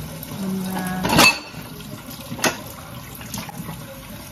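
Tap water running into a stainless-steel sink during hand dishwashing, with a sharp clatter of dishes knocking about a second in and a lighter knock a second or so later.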